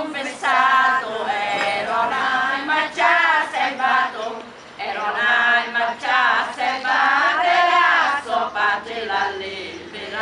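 Several women singing together, unaccompanied in the folk manner, a traditional Sicilian devotional song (triunfu) to Saint Anthony in dialect, with wavering, drawn-out notes.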